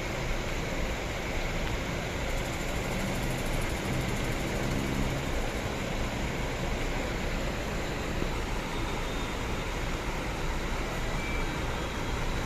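Steady road traffic noise, with a heavy diesel bus engine's low hum rising out of it for a few seconds in the middle.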